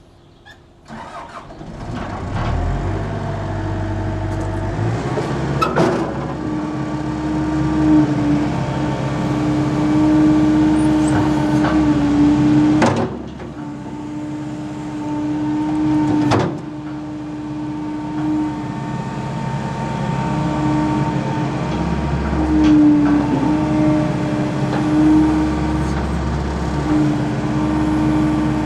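Caterpillar M315C wheeled excavator's diesel engine starting about a second in, then running with its load rising and falling, a steady whine over the engine that cuts out now and then, and a few sharp knocks.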